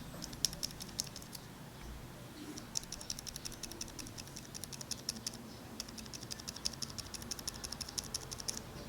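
ZealPC Zilents V2 62g silent tactile mechanical keyboard switch being pressed and released rapidly, in three runs of quick clicks with short pauses between them.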